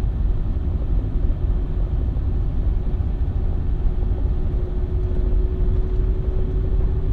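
A car driving slowly on a sealed road, heard from inside the vehicle: a steady low rumble of engine and tyres, with a faint constant hum over it.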